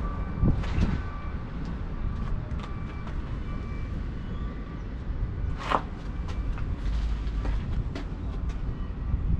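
Low steady rumble of heavy machinery running, with faint whining tones that come and go and scattered light clicks; a sharper knock about halfway through.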